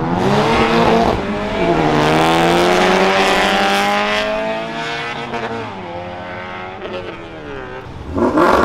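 A car engine revving hard as the car accelerates away, its pitch climbing with a break about a second in, climbing again, then falling and fading. A second loud rev bursts in near the end.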